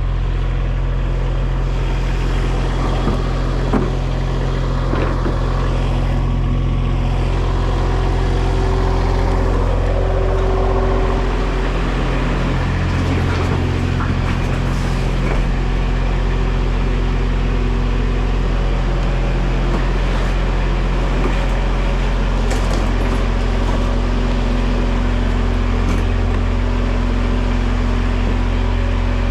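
Engine idling steadily, a constant low hum with no change in speed.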